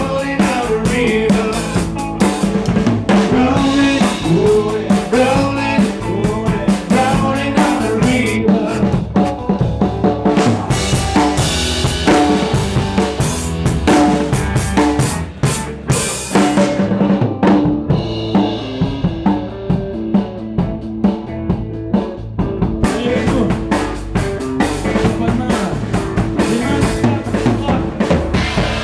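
Live band playing, heard close to the drum kit: bass drum, snare and cymbals over the other instruments. The drums drop out for several seconds a little past the middle, then come back in.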